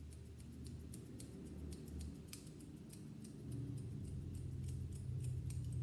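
Grooming shears snipping through a dog's coat on the top of the head, quick repeated snips a few times a second, over a low steady hum.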